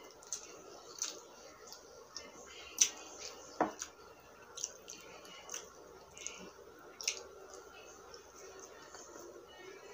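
Eating sounds: fingers picking apart fried tilapia, with wet chewing and lip smacks. A scattering of sharp, moist mouth clicks comes every second or so, the loudest a little under three seconds in.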